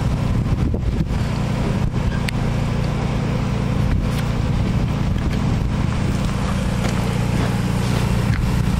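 Diesel semi-truck engine running steadily, a low even drone.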